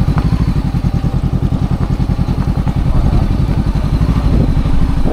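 Motorcycle engine running steadily, its even firing pulses unchanged throughout.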